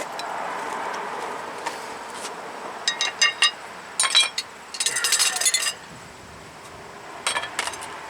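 Metal hand tools clinking and rattling against each other in several short groups of ringing clinks, the longest rattle about five seconds in.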